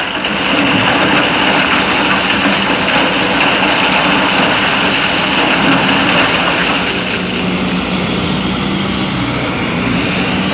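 Excavator's diesel engine running under load, with a steady rushing noise over it that eases about seven seconds in.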